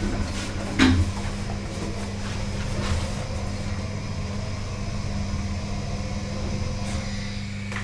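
Lift car travelling: a steady motor hum, with a single knock about a second in.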